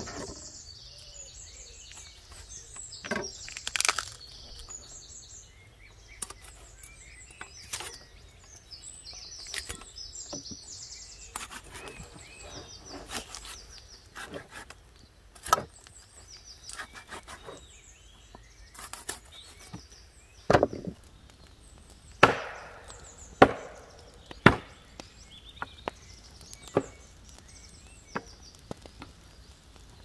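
Firewood being chopped and split: irregular sharp wooden knocks and cracks, the loudest strokes coming in a cluster about twenty to twenty-five seconds in.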